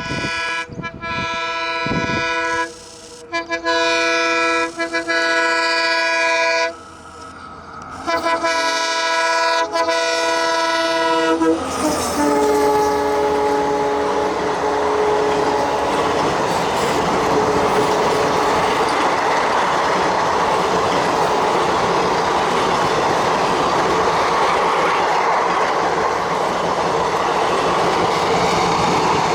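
WDP4D diesel locomotive's multi-tone horn sounding three long blasts, the last one dropping in pitch as the locomotive passes. The train then rolls by with steady wheel clatter and rushing noise from the coaches.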